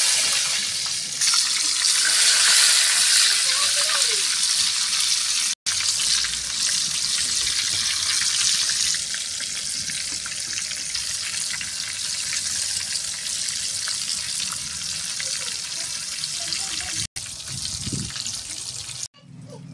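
Eggplant halves deep-frying in hot oil in an iron karahi over a wood fire: a steady, loud sizzle. It is strongest in the first few seconds, just after the pieces go in, then settles to a slightly lower, even sizzle.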